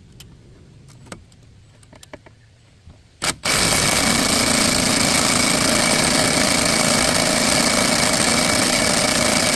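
A few faint knocks, then about three seconds in an impact wrench starts hammering steadily on a rusted, seized brake bolt. The bolt does not break loose; it is still too stuck even after being heated.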